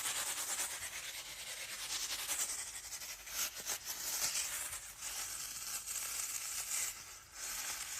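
Continuous scratching and rubbing on the surface of a juggling ball, a steady hissy rasp made close to the microphone.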